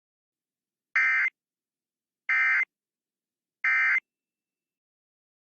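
Emergency Alert System end-of-message signal: three short bursts of SAME digital data tones, spaced evenly a little over a second apart, marking the end of the broadcast alert.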